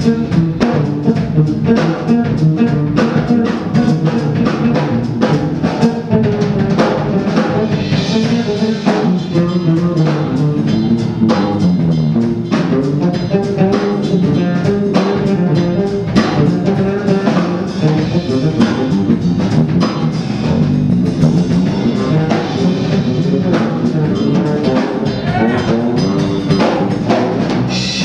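Live small-band music: a fretless electric bass solo over a drum kit keeping a steady groove.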